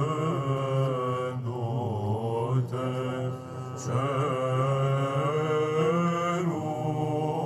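Male choir of psalts singing Byzantine chant: a slow, drawn-out melismatic line over a steady low held note, with a brief dip about three seconds in.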